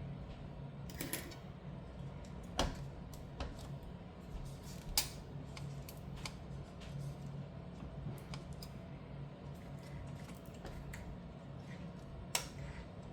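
Scattered small clicks and taps of hands and tools working on a graphics card's cooler and screws, a few a second at most, over a low steady hum.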